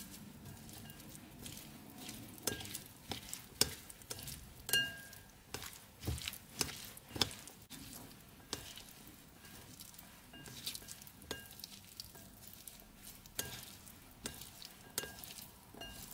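Wooden chopsticks tossing wet grated beetroot in a ceramic bowl: irregular clicks and taps of the chopsticks against the bowl, some ringing briefly, over the soft wet rustle of the shredded beet being turned. The tapping is busiest in the first half.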